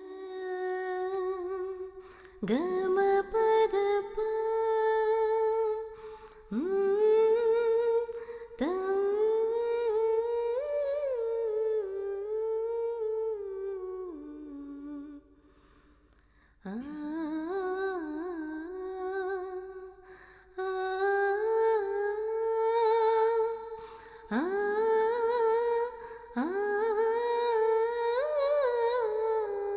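A voice humming a slow, wordless melody in held phrases of a few seconds. Each phrase slides up into its first note, with short breaks between them.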